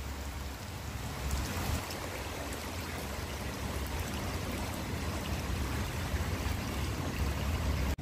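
Hot-spring water flowing steadily into an open-air stone bath, a continuous splashing trickle, with a low rumble underneath.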